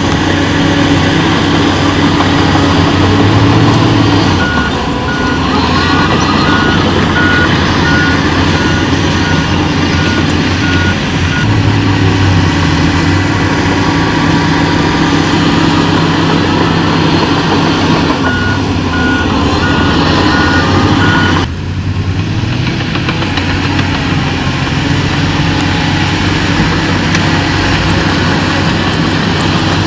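Heavy earthmoving machinery's diesel engines running steadily, with a reversing alarm beeping in two spells of about one and a half beeps a second.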